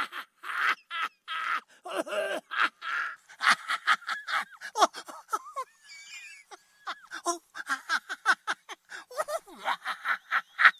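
A man's manic, crazed laughter: rapid bursts of cackling, with a thin, wavering high-pitched stretch about halfway through.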